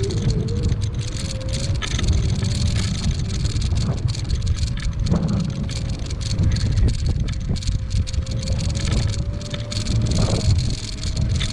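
AOVO electric scooter riding on asphalt: a steady low rumble from the small tyres rolling, with a thin motor whine that climbs slowly in pitch toward the end.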